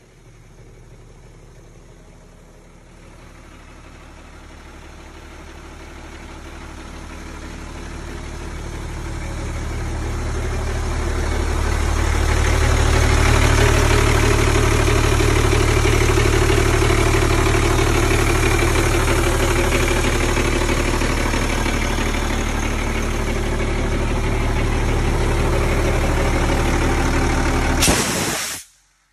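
Diesel engine of an Airman PDS185S portable air compressor running at a steady idle, growing much louder over the first dozen seconds and then holding. Near the end a short burst of air hisses out as a service valve on the control panel is opened.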